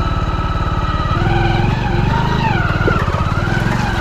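Motorcycle engine running steadily under way, with a faint wavering higher tone over its even pulse.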